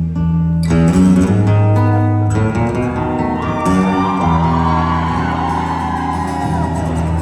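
Live rock band playing: guitar chords over steady bass notes, changing every second or so.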